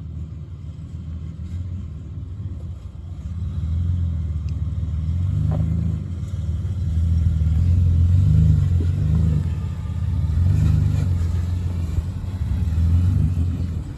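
4x4 truck's engine rumbling low under load, the throttle swelling and easing several times as the truck works along an off-road line.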